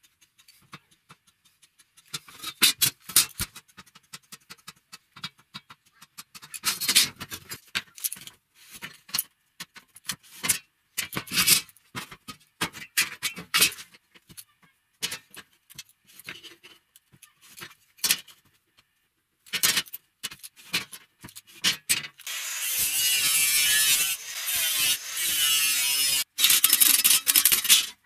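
Metalworking on steel square tubing: scattered clicks, taps and scrapes of metal and tools, then a steady harsh noise from a power tool or welding for the last five seconds or so, stopping briefly once near the end.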